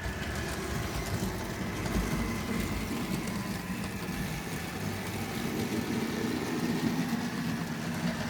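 A model railway locomotive running along the track: a steady electric-motor whirr with a faint hum and wheel rumble. It starts just as the power comes on.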